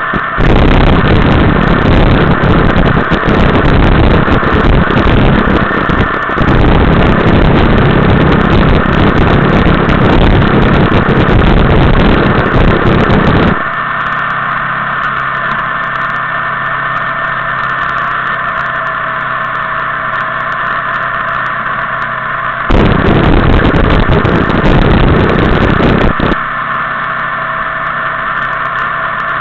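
Motorcycle riding at steady road speed, heavy wind buffeting the microphone. About halfway through the buffeting drops away, leaving the engine's steady hum, then returns for a few seconds near the end.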